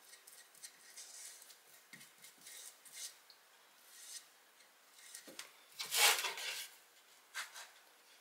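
Faint, intermittent rubbing and scraping on wood as wood glue is spread into a groove, with a louder scrape about six seconds in.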